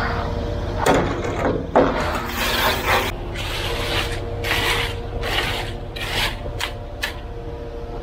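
Steel hand trowel scraping and packing stiff, coarse concrete along a form edge in repeated short strokes. A steady engine hum runs underneath.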